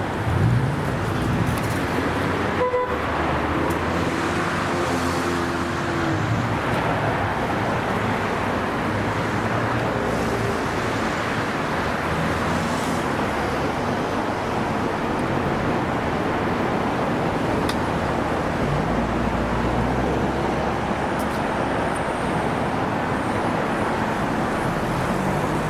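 Steady city street traffic noise: cars running and passing, with a few short pitched tones rising above it.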